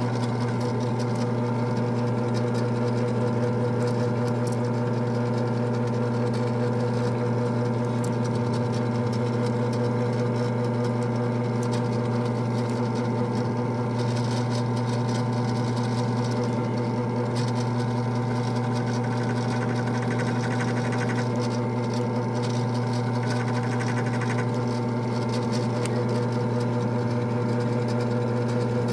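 Benchtop drill press motor running steadily with a constant hum, while a die-cast toy's wheels are held against the turning chuck. Faint irregular light ticks sound over the hum.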